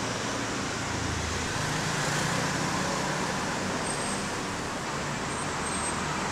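Steady background noise: an even hiss with a low rumble underneath, and no distinct sounds standing out.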